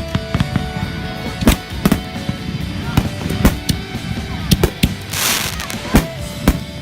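Fireworks going off: sharp bangs about every half second to second, with a burst of hissing crackle about five seconds in.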